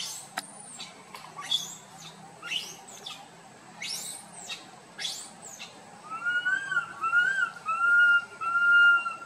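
A young macaque crying out: a run of high calls that sweep sharply up and down about once a second, then four louder, steadier whistle-like coos near the end.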